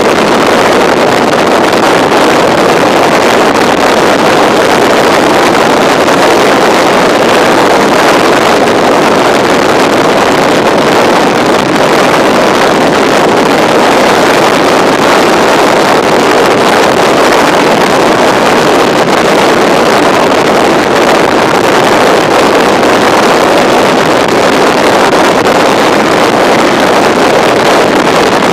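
Steady rush of wind on the microphone of a BMW F650 motorcycle riding at road speed, with the engine running underneath, loud and unchanging throughout.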